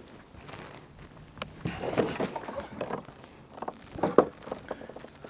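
Irregular knocks, clicks and rustling of handling gear and a fish in a kayak, loudest in a cluster about two seconds in and another about four seconds in.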